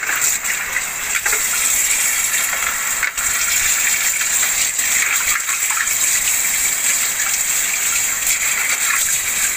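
Tap water running and splashing into a stainless steel sink and a metal bowl as raw chicken pieces are rinsed by hand: a steady, loud gushing hiss.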